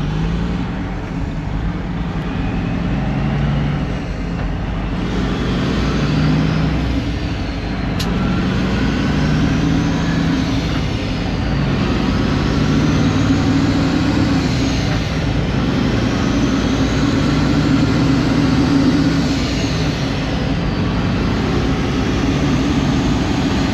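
Engine and road noise heard from inside the cab of a moving truck: a steady running hum whose pitch rises and falls a little as it drives.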